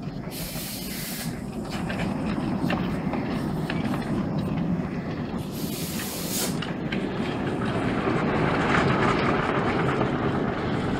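Coal-fired miniature steam locomotive running slowly along the track, with scattered wheel clicks over the rails and two sharp steam hisses, about a second each, near the start and about halfway through. The running noise grows louder in the second half.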